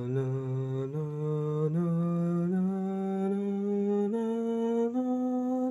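A single voice hums and sings held notes without words, each note a step higher than the last, climbing about six steps like a vocal warm-up scale.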